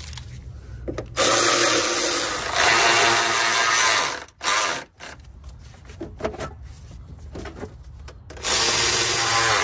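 Cordless power tool running in two bursts, one of about three seconds and a shorter one near the end, driving fasteners back in during engine-bay reassembly.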